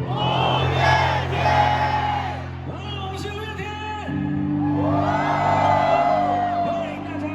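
Audience cheering and screaming in swells over a live band holding sustained chords; the chord changes about four seconds in.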